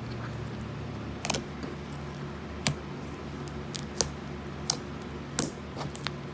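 Slime made from Elmer's washable color glue being handled, giving sharp, irregular clicks and pops, about one a second, over a steady low hum.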